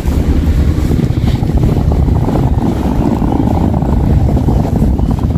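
Loud, steady low rumble of wind buffeting the microphone, with a vehicle engine running underneath.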